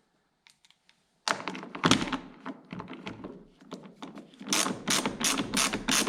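Metal parts clunking as a lawn mower wheel is fitted, then a ratchet wrench clicking rapidly, about three clicks a second, from about halfway in as the wheel nut is run down.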